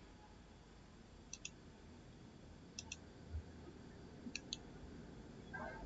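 Computer mouse clicking faintly: three pairs of quick clicks about a second and a half apart, with a soft low thump near the middle.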